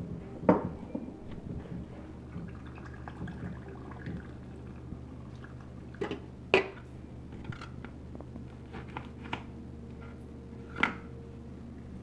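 Drink poured over packed snow in a tall glass, orange soda from a can among it, with a handful of sharp clinks and knocks of glass and can on a stone countertop. A low steady hum runs underneath.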